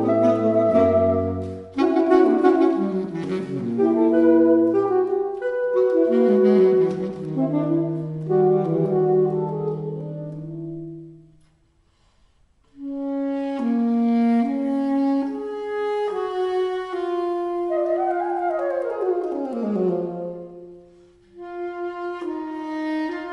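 Alto, tenor and baritone saxophones playing classical chamber music together in overlapping held notes. The music breaks off for about a second near the middle, then resumes, with one line sliding steeply downward near the end.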